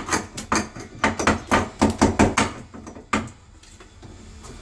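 A quick, uneven series of about a dozen sharp knocks or taps on the window frame, stopping about three seconds in.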